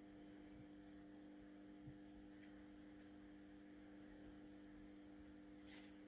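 Near silence: a faint steady electrical hum, with one faint tick about two seconds in.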